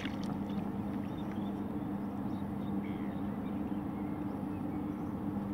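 A squid being reeled in and netted beside a kayak: faint water sounds and small handling noises from the rod and landing net over a steady low hum.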